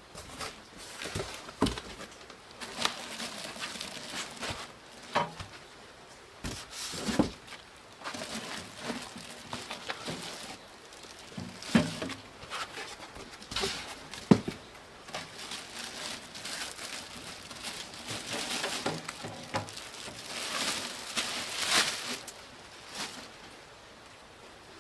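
Hands working on computer hardware and a PC case: irregular clicks and light knocks, with rustling of parts and packaging in between.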